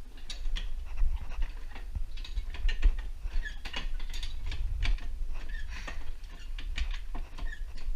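Hi-Lift farm jack ratcheting down, its climbing pins and lever clicking irregularly as it lowers a vehicle notch by notch. The old jack has been sticking and is just starting to move again.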